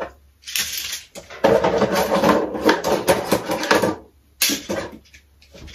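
Plastic fidget toys clattering and rattling as they are rummaged out of a drawer, in two stretches of dense clicking, then a single knock about four and a half seconds in.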